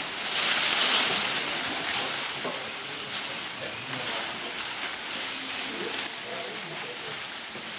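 Short, high-pitched chirps from black-capped (Bolivian) squirrel monkeys: one about two seconds in, a louder one about six seconds in and a quick pair near the end, over a steady background hiss.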